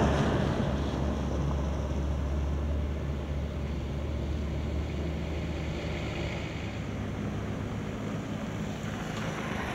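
Traffic on a wet road: a vehicle passes close by right at the start, and its engine hum and tyre hiss fade slowly over several seconds. Other vehicles approach, a motorcycle among them near the end.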